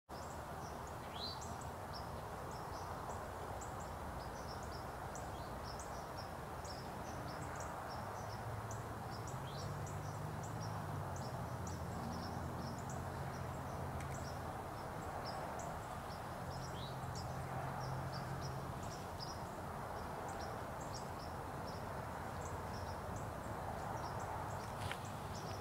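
Woodland at dusk: small birds give many short, high chips throughout, with a few rising calls, over a steady hiss. A faint low drone runs through the middle.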